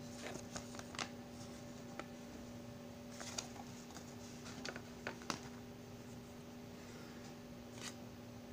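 Scattered light clicks and taps of a clear plastic cassette case and its paper insert card being handled, about ten in all, with a steady low hum underneath.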